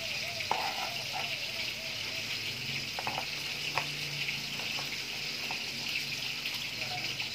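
Steady sizzling of fish frying in hot oil, with a few light knife taps on a cutting board.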